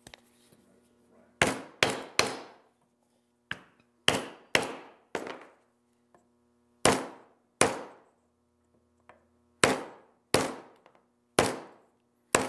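A hammer striking a wooden drive block to seat tape-wrapped magneto coils over the pole pieces of a Ford Model T magneto field coil ring: about a dozen sharp blows, singly and in quick pairs and threes, each with a short ringing decay.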